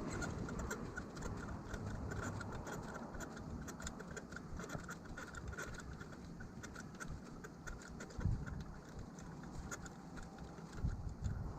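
Light irregular clicks and scratching over a low rumble.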